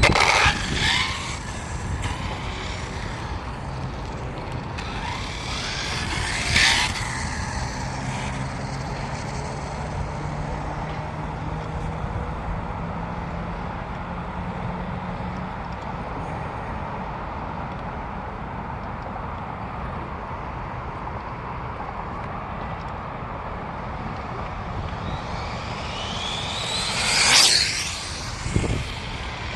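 Typhon RC buggy on 8S power making three fast passes, its electric motor whining loudly as it goes by. The loudest pass comes near the end, with the whine sweeping up in pitch and then down as it passes.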